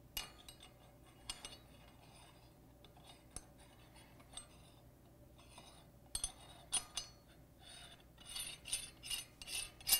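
Steel parts of an IMS bearing removal and installation tool clinking and scraping together as they are fitted by hand: scattered light clicks, then a quick run of clinks in the last couple of seconds.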